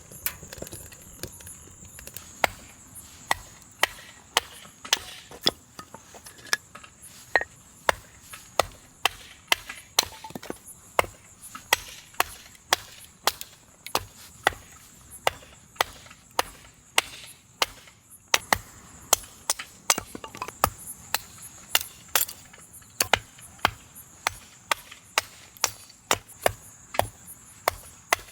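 Firewood being split: a steady run of sharp chopping blows into wood, a little more than one a second.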